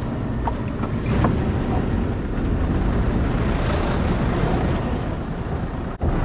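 Unicat 4x4 expedition camper truck driving on a rough dirt road, heard from inside the cab: a steady rumble of engine and tyres, with a few light knocks about a second in.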